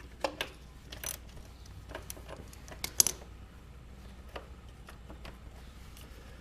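Scattered sharp metal clicks and clinks of hand tools on the ATV engine's shift lever bolt as it is loosened, the loudest about a second and three seconds in.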